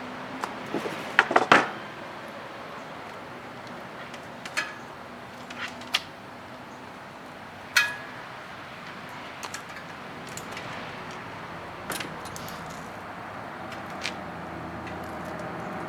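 Small hard parts and tools being handled during assembly: scattered sharp clicks and clinks, a quick cluster of them about a second in and single ones every second or two after, over a steady hiss.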